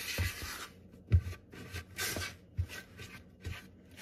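Spatula stirring dry flour mixture in a plastic mixing bowl: irregular soft scraping sweeps with short knocks against the bowl.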